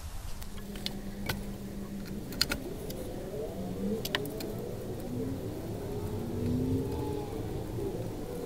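A motor vehicle engine running with its pitch slowly rising and falling, along with a few sharp metallic clinks.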